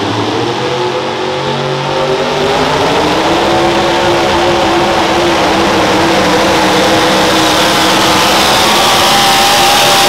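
A pulling pickup truck's engine runs at full throttle as it hauls a weight-transfer sled down a dirt pulling track. Its pitch climbs over the first few seconds, then holds high and steady, very loud.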